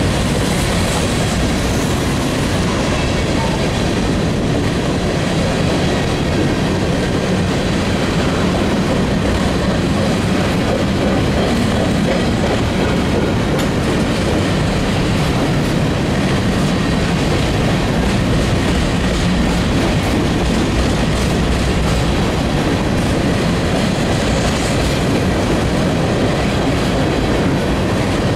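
Covered hopper cars of a mixed freight train rolling past. The steel wheels on the rails make a loud, steady rumble and clatter.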